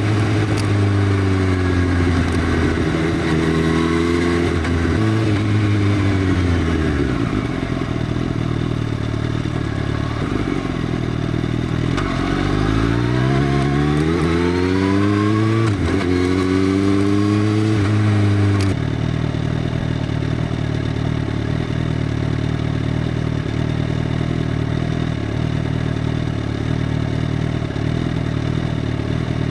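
Motorcycle engine running through an open Arrow full-system exhaust with the dB killer removed, its pitch rising and falling as it is revved, with a drop around six seconds in and a stepped climb from about twelve seconds. About nineteen seconds in it cuts abruptly to a steady, even running sound.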